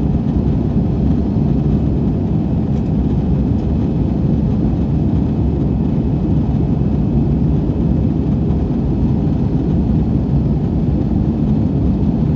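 Steady cabin noise of an Airbus A320-200 in the climb after takeoff: a low, even rumble of engines and airflow heard inside the cabin.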